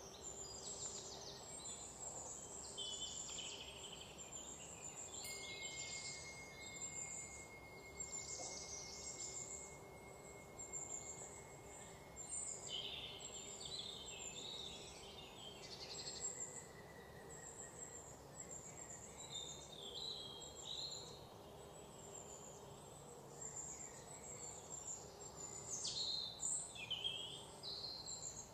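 Forest ambience of small birds chirping and calling, with insects and a faint steady high tone lasting about ten seconds in the first half.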